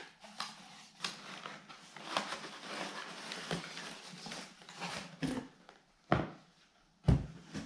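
Cardboard carton flaps and crumpled packing paper rustling and crackling as a knife box is lifted out of a shipping carton, then a few dull knocks on the tabletop as the boxes are set down and moved, the last one the loudest, near the end.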